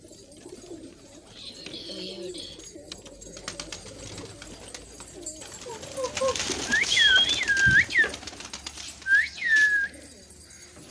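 Domestic pigeons cooing, with a burst of many wings flapping about six seconds in as part of the flock takes off. Loud sliding whistles, each rising and falling, sound twice in the second half.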